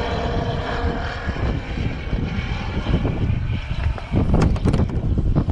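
A propeller airplane's engine droning steadily, fading over the first couple of seconds, while wind buffets the microphone in low rumbles that grow stronger near the end.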